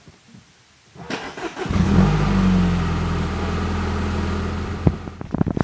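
Mini Countryman's engine starting: a short crank about a second in, catching with a brief flare in revs that falls back to a steady idle.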